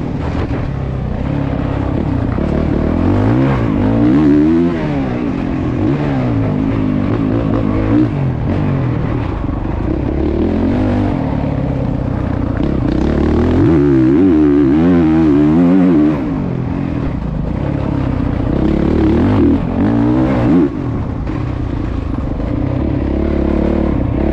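Honda dirt bike's four-stroke engine heard from on board, its note climbing and falling over and over as the throttle is opened and closed, with brief drops when the throttle is shut off.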